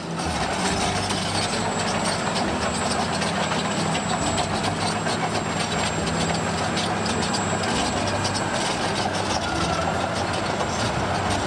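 Toy construction vehicle running with a steady, rattling engine-like sound.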